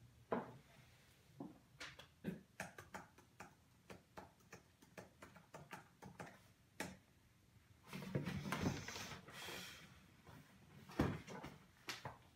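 Typing on a MacBook laptop keyboard: a long run of quick, irregular key clicks. Near the end there is a rustling stretch of movement, then a couple of sharp thumps.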